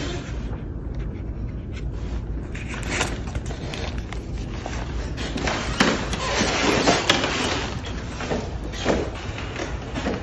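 Handling sounds from work at a Washington iron hand press: scraping, with a few short clacks and knocks spread through, over a low steady rumble.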